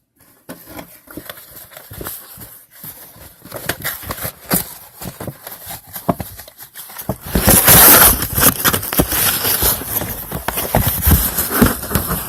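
A cat pawing and scrabbling at a puzzle box: a run of light taps and knocks, turning into loud, dense scratching and knocking about seven seconds in.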